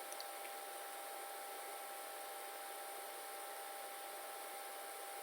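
Faint steady background hiss with a low electrical hum and a few thin steady tones, and a couple of very faint ticks just after the start.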